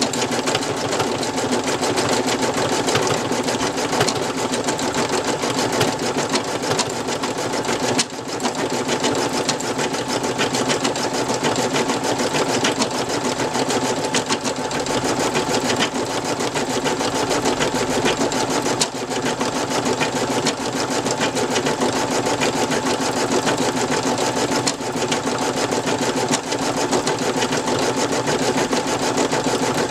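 Brother NV2600 embroidery machine stitching out a design: a fast, steady chatter of needle strokes, with a brief dip about eight seconds in.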